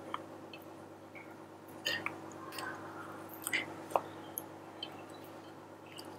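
Faint, soft handling sounds of ladyfingers being dipped in a glass bowl of coffee and pressed into a metal baking dish: scattered light clicks and soft wet squishes, with one sharper click about four seconds in.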